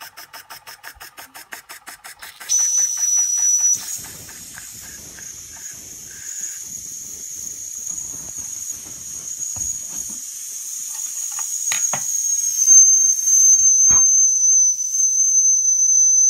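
Toy oscillating steam engine chuffing quickly, about five beats a second, then stopping about two seconds in as steam from its small boiler starts to hiss with a loud, steady high shrill tone that lasts to the end. A few sharp knocks come near the end.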